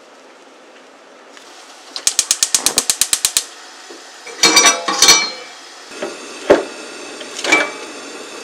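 Gas hob igniter ticking rapidly, about a dozen clicks in a second and a half, as a burner is lit under a stainless steel saucepan of water. Then a few ringing metal clanks of the pot on the grate, a steady hiss, and two single knocks.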